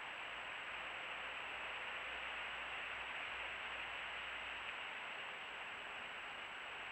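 Steady hiss of a Browning trail camera's microphone self-noise, with a thin, steady high-pitched whine running through it. No distinct animal calls stand out.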